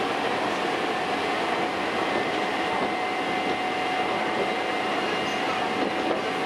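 Hankyu Kyo-train electric train running steadily, heard from inside the car: an even rumble of wheels on rail with a steady thin whine.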